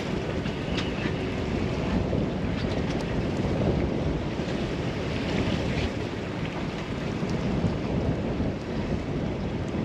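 Steady rush of wind buffeting the microphone, with water washing around the boat.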